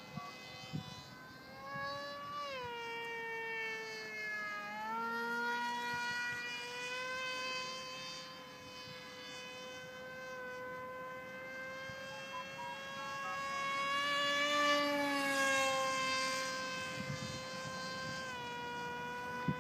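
Tuffwing 32 RC plane's 2200kv brushless motor and 6x5 propeller buzzing in flight, a steady whine that shifts in pitch with throttle, dropping about two and a half seconds in and again near five seconds, then holding steady. It grows louder around fifteen seconds in.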